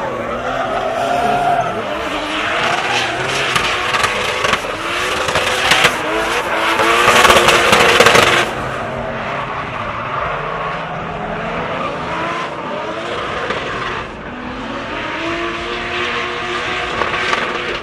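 Turbocharged Nissan 240SX (S13) drift car sliding, its engine revving up and down over screeching tires. It is loudest from about six to eight and a half seconds in, then drops off sharply.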